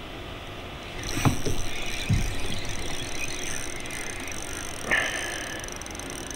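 Quiet ambience of a small boat on the water: faint, even noise of water and boat, with a light knock about a second in and another short sound about five seconds in.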